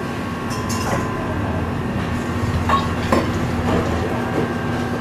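Wire whisk beating egg yolks in a stainless steel bowl, clinking and scraping against the metal, with a few sharper clicks, over a steady mechanical hum.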